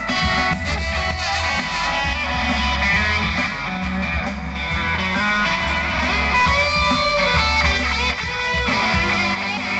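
Live band music: strummed guitars over a steady low bass line.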